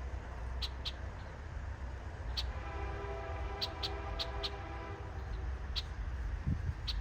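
A locomotive horn sounds one held chord for about two and a half seconds, starting a little past two seconds in, over a steady low rumble. Short high chirps come and go throughout.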